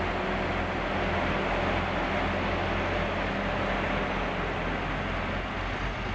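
Heavy diesel engine of a piece of construction machinery running steadily, with a low hum under a broad even noise.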